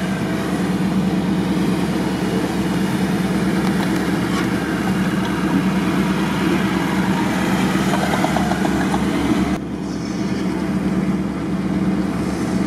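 Off-road vehicle's engine running steadily at low speed as it creeps through deep mud, heard close up from its open side door. About three-quarters of the way through the sound cuts abruptly to a quieter engine, from an old GAZ-69 jeep driving through the mud.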